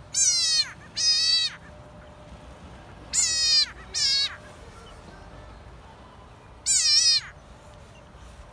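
Tree frog's distress screams as a black racer holds it by the leg: five loud calls of about half a second each, every one dropping in pitch at its end, in two pairs and then a single call near the end.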